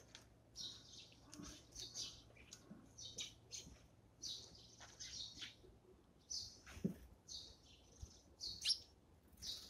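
Eurasian tree sparrows chirping: short, high chirps about two a second, with a soft knock about seven seconds in.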